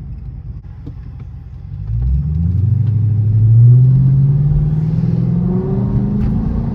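Car engine idling, then about two seconds in pulling away hard under full throttle, its pitch climbing steadily through a long pull, heard from inside the cabin.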